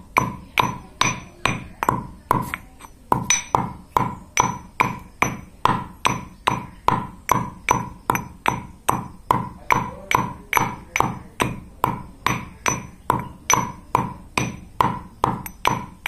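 Stone pestle pounding in a stone mortar, a steady run of knocks about three a second, each with a short ringing tone. The pounding pauses briefly about two and a half seconds in.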